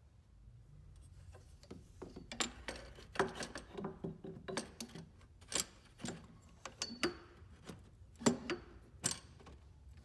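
Irregular light clicks and knocks of snowmobile steering parts being handled and fitted, as the anti-slop steering post bushing is pressed on and the steering shaft is set into the crossbar; they start about a second in.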